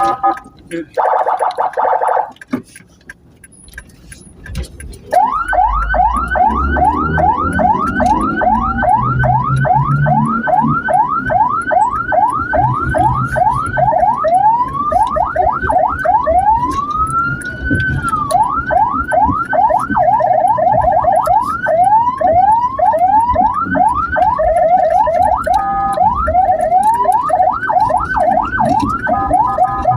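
Ambulance electronic siren in a fast yelp, its pitch sweeping up about three times a second over a low engine rumble. It breaks once into a single slow rise-and-fall wail partway through, and briefly into steady alternating tones near the end. A short steady tone sounds about a second in, before the yelp starts about five seconds in.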